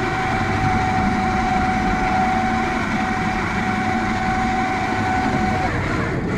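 Electric deep-drop fishing reel winding line up from deep water with a steady motor whine, which stops about five and a half seconds in, over the low rumble of an idling outboard and water.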